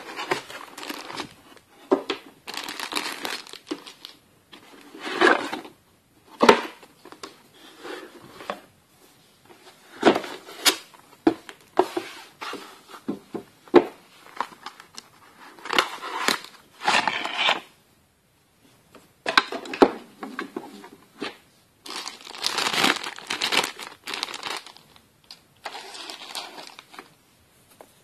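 Unboxing handling noise: a cardboard box and its inner packaging sliding and rustling, plastic bags crinkling, and items knocking as they are set down on a table, in irregular bursts with short pauses.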